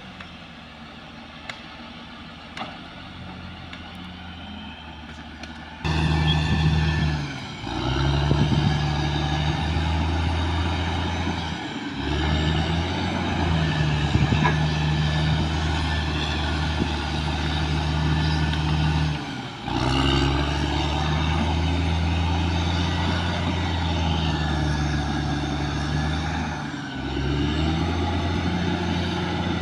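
Caterpillar D6R XL crawler bulldozer's diesel engine running with a steady low drone while the dozer works the ground. It is quieter for about the first six seconds, then suddenly louder, and dips briefly a few times.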